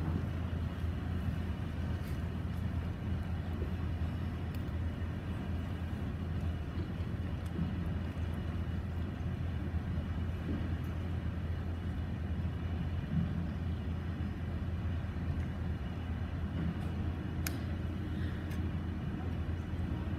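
Room tone of a large hall: a steady low hum with faint rustling, and a small click about three-quarters of the way through.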